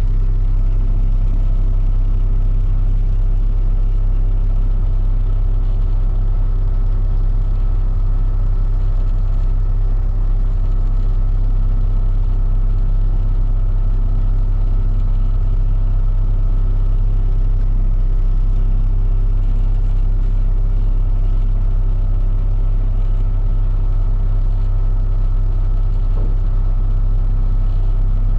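Concrete mixer truck's diesel engine idling with a steady low hum that does not change.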